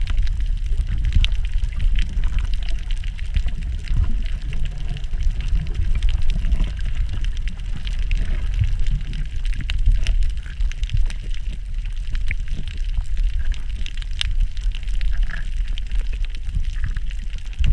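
Underwater water noise while snorkeling over a shallow reef: a steady low rumble of moving water, with many scattered faint clicks and crackles.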